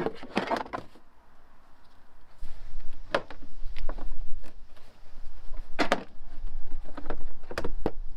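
Sharp plastic knocks and a scrape as the wheel arch liner of a Land Rover Freelander 2 is worked loose and pulled from the wheel well, about half a dozen separate knocks, over a low rumble that comes in a couple of seconds in.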